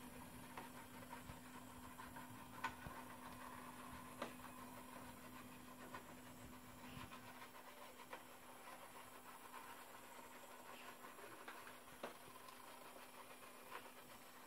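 Near silence: faint room tone with a low steady hum that drops away about halfway through, and a few soft, faint clicks.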